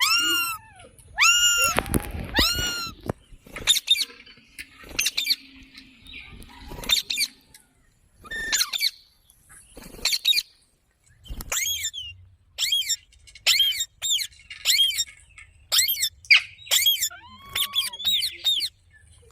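Green parrot giving repeated short screeching calls, each arching up and falling in pitch. They come in quick runs at the start and again through the second half, with softer chatter between.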